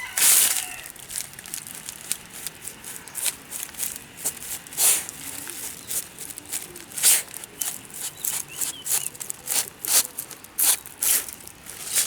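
Irregular crackling and rustling of dry ground litter being disturbed by a dog sniffing and searching, with sharp crackles coming unevenly, several a second.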